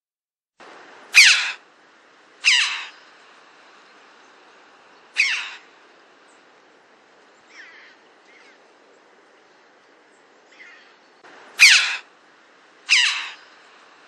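Red-billed chough flight calls: short, high calls that slide steeply downward in pitch, repeated every second or few seconds. Five are loud and three, around the middle, are faint.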